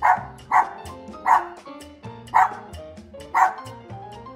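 Small dog barking, five sharp barks about a second apart, over background music.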